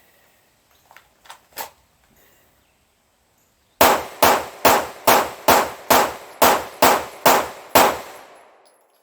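Sig Sauer P226 pistol firing a string of about ten shots at a steady, even pace of roughly two a second, a controlled-cadence recoil-control string. A few faint clicks come a couple of seconds before the first shot.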